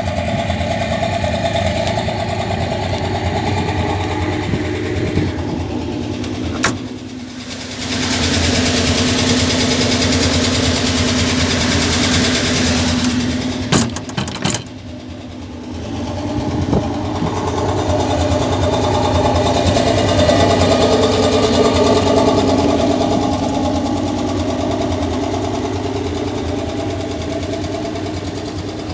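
Hotchkiss SPz kurz armoured personnel carrier's engine running steadily at idle, with two brief dips in level and a few sharp clicks, one about a quarter of the way in and a small cluster around halfway.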